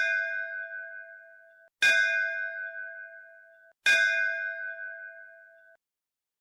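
A bell struck three times, about two seconds apart. Each strike rings and fades, then cuts off abruptly.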